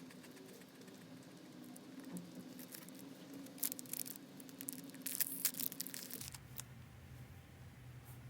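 Close crackling and rustling of snack food and its packaging being handled, densest about midway, over a steady low hum.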